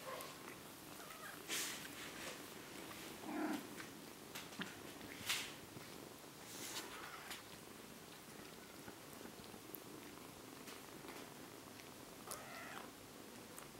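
Faint purring from British Shorthair cats, with a few short rustles and scuffles from kittens moving on a blanket.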